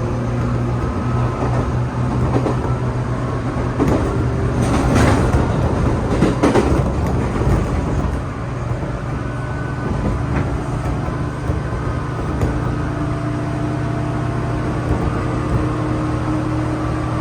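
A 415 series electric train running, heard from inside the carriage: a steady low hum with motor tones. A louder, rougher stretch of wheel-and-rail noise comes about four to seven seconds in.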